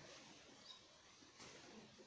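Near silence, broken only by one faint, short high chirp and, later, one faint click.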